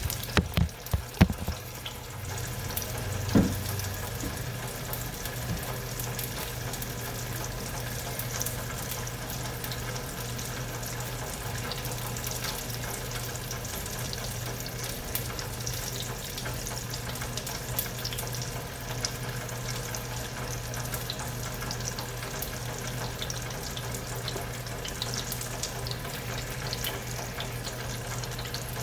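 Cooked sausage sizzling steadily in a frying pan, with a few knocks of utensil on pan in the first few seconds and a steady low hum underneath.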